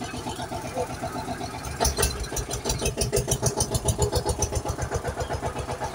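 Tractor engine running with a steady chug, growing louder and heavier about two seconds in.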